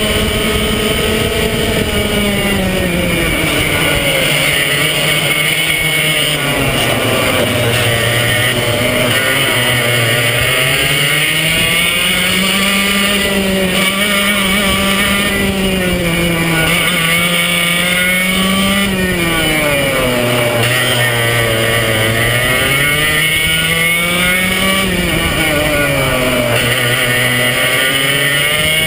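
Swedetech HPV2 kart engine at racing speed, heard from on board, its pitch climbing on the straights and dropping off into the corners, over and over.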